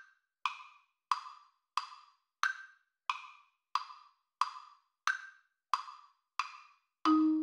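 Woodblock-style metronome click at 90 beats per minute, about one and a half clicks a second, counting in the empty bars; every fourth click is brighter, marking the first beat of each bar. Near the end a sustained E-flat note enters as the melody's pickup.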